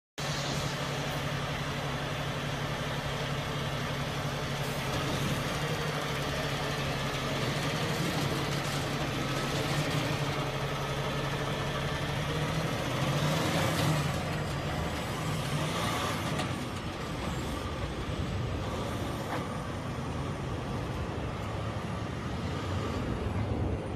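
A heavy vehicle engine running steadily, revving up briefly a little past halfway and then easing off, leaving a broad rumble.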